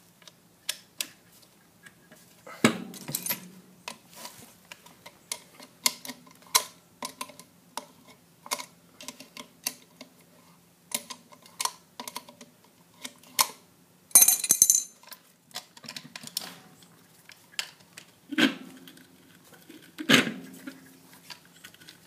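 An open-end wrench clicking and clinking against the bolt of an ECM blower motor's steel belly-band strap as it is turned, in a string of irregular sharp clicks. A few heavier knocks come in, with a short metallic scrape about two-thirds of the way through.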